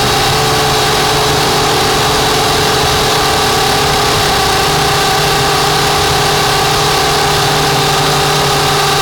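Steady whine and hum of a drone's motors and propellers, heard close up from the camera on board as it hovers and drifts, holding an even pitch.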